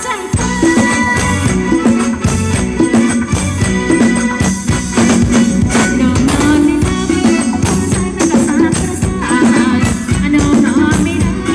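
Live Thai ramwong dance music from a band, with a steady percussion beat under a melody.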